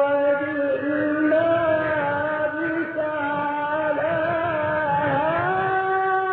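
A male reciter chanting the Quran in the melodic tajweed style, drawing out long held notes with slow pitch slides and small ornaments. A little past the middle the voice glides up and holds a higher note.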